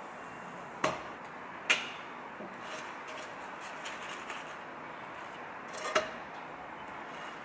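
Spatula knocking against a nonstick frying pan while turning a grilled cheese sandwich: three sharp knocks, about a second in, near two seconds and about six seconds in, with lighter clicks in between, over a steady hiss.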